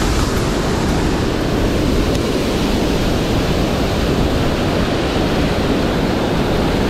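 Steady rushing of water pouring over a dam spillway, an even, unbroken roar of falling water.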